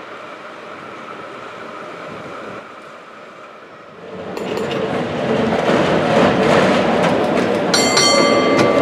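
A San Francisco cable car running on its street track. A quiet, steady running noise gives way about four seconds in to a loud clattering and rattling as the car passes close by. Near the end there is a high metallic ringing.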